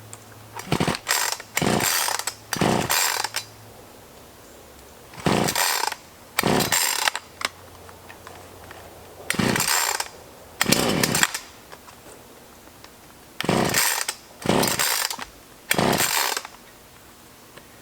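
Black Max 16-inch chainsaw being pull-started: about eleven quick yanks of the recoil starter cord, each a half-second rasp, in bunches of two to four with short pauses between. The engine does not catch.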